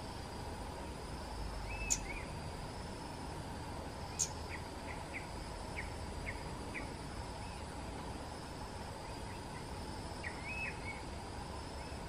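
Flowerpecker calling: two sharp, high clicks about two and four seconds in, then a quick run of about seven short chirps, and a short hooked phrase near the end. A steady high insect drone runs underneath.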